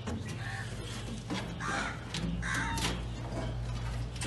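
Crows cawing, about three harsh calls a second or so apart, over a steady low hum and a few light clicks.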